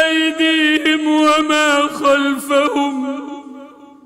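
A man's voice chanting Quran recitation, drawing out a long melodic phrase on held notes. The phrase sinks a little in pitch and fades away about three seconds in.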